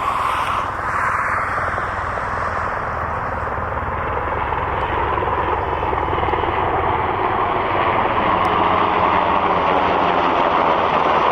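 U.S. Coast Guard MH-60T Jayhawk helicopter flying over, its rotor and turbine noise running steadily. It grows a little louder near the end.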